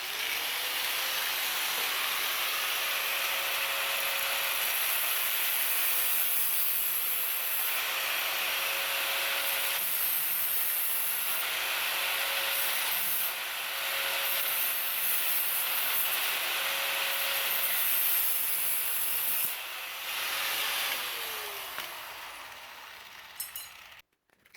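Small high-speed power cutting tool running steady, with repeated gritty bursts as the cutting wheel bites into a dowel being cut to length. Near the end the motor is switched off and spins down.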